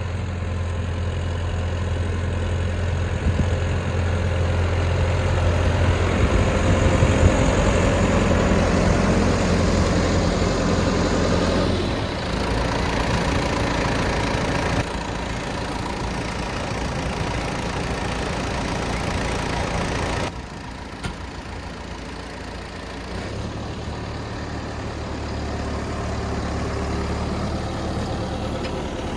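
Farm tractor engine running steadily while pulling a hay baler, its low hum shifting abruptly in level and pitch a few times.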